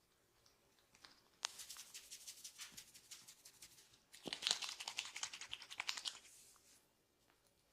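A barber's fingers working quickly on a head during a massage: dense runs of fine crackling clicks, several a second, in two bursts. The first starts about one and a half seconds in with a sharp click, and the second, louder, starts about four seconds in.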